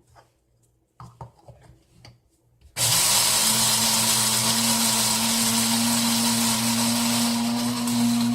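A few faint clicks and rustles, then about three seconds in an electric blade spice grinder switches on and runs steadily with a hum and a loud hiss. It is grinding dry rice to scour out leftover jalapeño powder.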